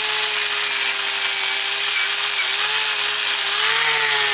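Angle grinder with a wire cup brush running against an old steel adjustable spanner, scouring it clean: a steady motor whine under a bright scratching hiss of wire on metal.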